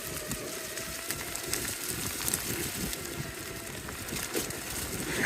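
All-terrain electric skateboard rolling over a dirt bush track: a steady rough rumble from its tyres, with many small crackles and clicks from gravel and twigs under the wheels. A faint electric motor whine fades out in the first second.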